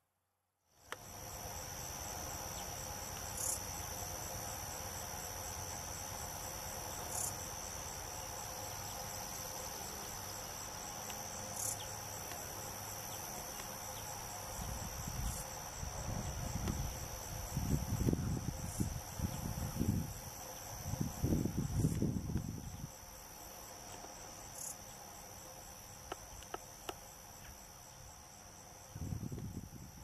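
A steady high-pitched insect chorus starts about a second in, with a brighter chirp standing out every three to four seconds. Irregular low rumbling comes and goes in the middle and again near the end.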